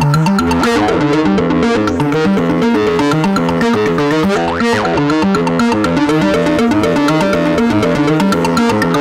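Eurorack modular synthesizer music: a fast sequenced pattern of short pitched notes over a stepping bass line, with a brief upward sweep about halfway through.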